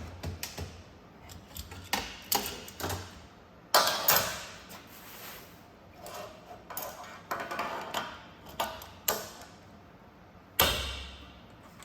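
Irregular clicks, knocks and small clanks of metal parts of a welding torch holder being handled and clamped together, with louder clanks about four seconds in and near the end.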